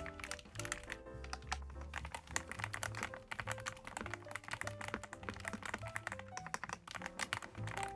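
Fast typing on a YUNZII gasket-mounted mechanical keyboard with PBT keycaps: a dense run of quick key clacks, under background music with a bass line and melody.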